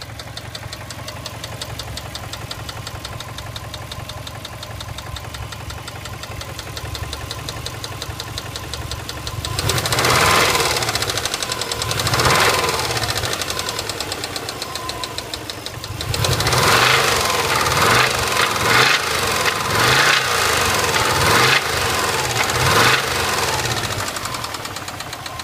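Subaru EJ206 flat-four engine idling with a steady, regular knock, then revved: two blips about ten and twelve seconds in, then a run of quick blips over the next several seconds before it settles back toward idle. The knock is the fault under investigation.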